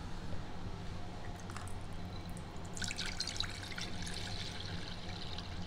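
Spring water poured in a stream into a glass bowl, splashing and bubbling as it fills; the pour starts about three seconds in.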